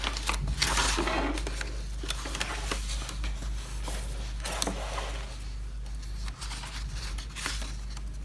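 Large pages of a paperback colouring book being turned by hand: paper rustling and flapping in several bursts, the loudest about a second in.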